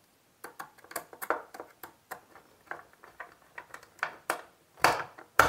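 Screwdriver working the terminal screw of a single-phase energy meter to clamp a wire: a run of irregular light clicks and ticks of metal on metal and plastic, with the loudest couple of clicks near the end.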